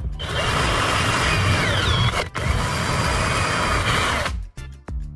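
Electric drill running with its twist bit boring through a plastic jar lid, with a brief stop about two seconds in. The drill stops a little before the end.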